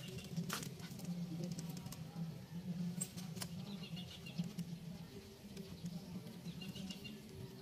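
Quiet outdoor ambience: a steady low hum, a few short clicks of the phone being handled, and faint high chirps twice.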